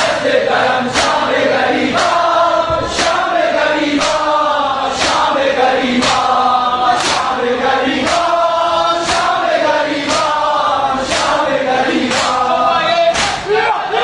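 A group of men chanting a mourning lament (nauha) in unison, with a sharp slap about once a second from chest-beating (matam) in time with the chant.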